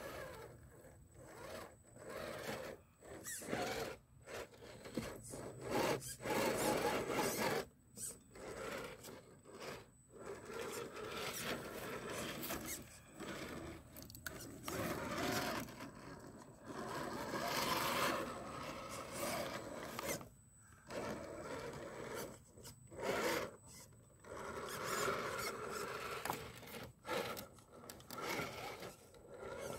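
Redcat Gen8 RC rock crawler with a 20-turn Axial brushed motor crawling over wooden boards and cinder blocks. The motor and gearbox run in short spurts that stop and start with the throttle, and the tyres rub and scrape on wood and concrete.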